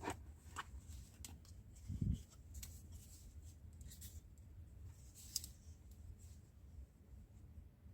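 Faint handling of product packaging being unpacked: scattered light clicks and rustles, with a soft thump about two seconds in.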